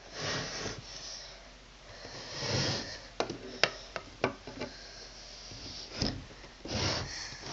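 A doll being pushed into a cluttered drawer, with rubbing and rustling against the things inside and a quick run of about five sharp clicks and knocks in the middle.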